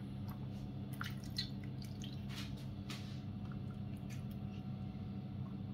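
Water poured from a kettle into the bottom of a metal baking tray, splashing and dripping in uneven little spatters, thicker in the first few seconds and then thinning out.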